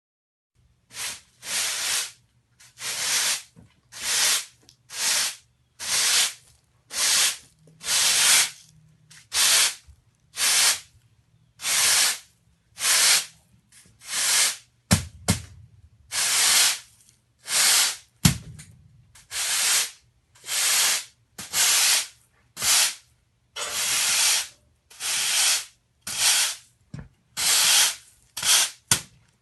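Push broom bristles swept across a concrete floor in short, repeated strokes, about one swish a second. Two sharp knocks sound about halfway through.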